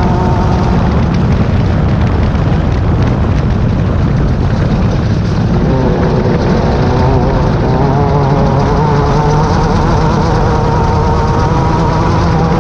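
Class 10 off-road race buggy's engine running hard at speed under a heavy, steady rumble; its pitch shifts a little over halfway through as the revs change.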